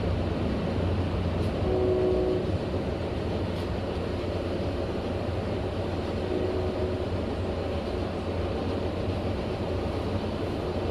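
Inside a Metra commuter coach running at speed: a steady rumble of wheels on track and car body noise. A brief pitched tone sounds about two seconds in.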